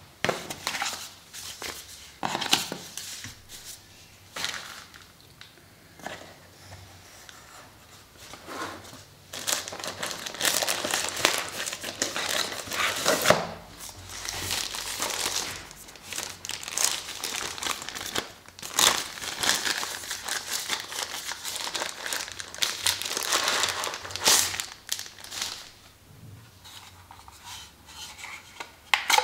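Paper wrapping being crinkled and unfolded by hand, in irregular rustling and crumpling bursts that are loudest through the middle, with the lighter scrape and handling of a cardboard box.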